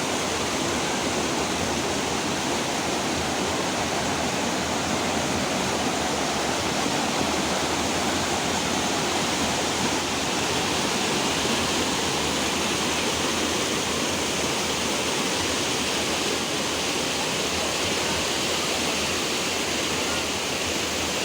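Steady rush of water falling at a waterfall, an even roar with no breaks.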